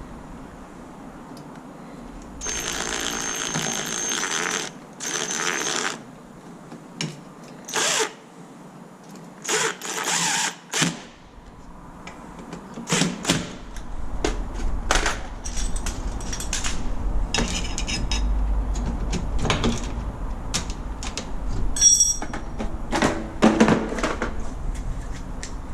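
Cordless drill-driver running in two bursts of a couple of seconds each, then shorter bursts, followed by clicks and knocks of tools and metal parts being handled. This is the work of unscrewing and refitting a mortise lock to set it back on an aluminium door.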